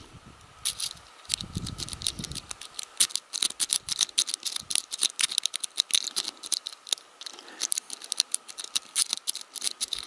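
A Sparrows Worm rake jiggled in and out of the keyway of a plastic-bodied Abus 74/40 LOTO padlock under light tension. It makes a quick, irregular run of small metallic clicks and scratches as it rakes over the standard pins.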